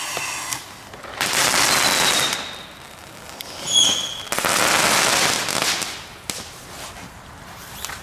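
Small category 1 ground firework burning on pavement: two spells of loud hissing as it sprays sparks, each lasting a second or so, with a short high whistle just before the second one. It dies down to a faint fizz near the end.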